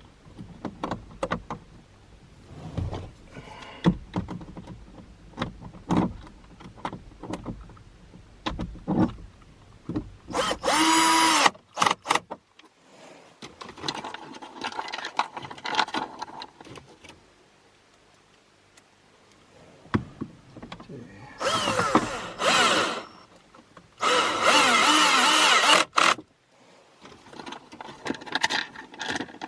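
Cordless drill driving screws in short bursts of a second or two, its motor whine shifting in pitch as it speeds up and slows. Scattered clicks and rattles of screws and plastic dash parts being handled come in between.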